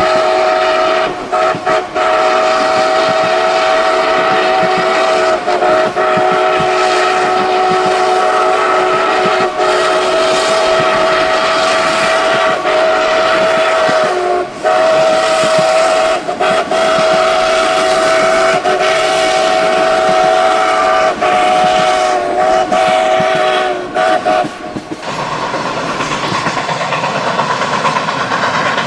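Train horn sounding a steady multi-note chord for about 25 seconds, broken by a few brief gaps, over the rumble and clatter of a train running on the rails. Near the end the horn stops and the steady rumble goes on alone.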